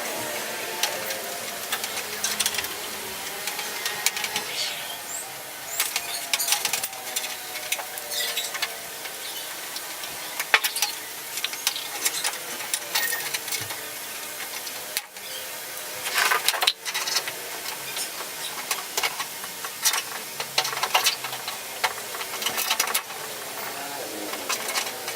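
Irregular clicks, taps and knocks of parts and tools being handled during washing machine repair, over a steady hiss, with a few sharper knocks about halfway through.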